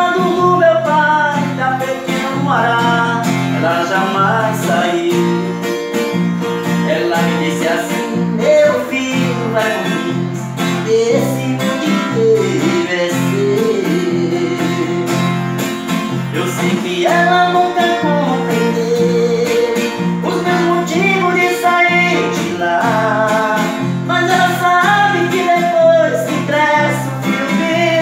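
A man singing to his own strummed acoustic guitar: steady chords under a sung melody.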